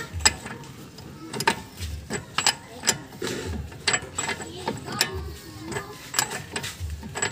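Ratchet wrench clicking as its handle is swung back and forth, turning the front wheel's axle hub nut through a 32 mm socket: sharp clicks, about one or two a second, with dull knocks in between.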